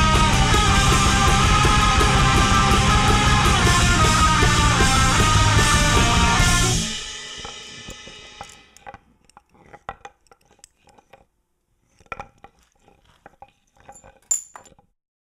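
Black metal band (distorted guitars and drum kit) playing loud and dense, then stopping about seven seconds in, the sound dying away over a second or so. A few faint, short sounds follow, scattered until near the end.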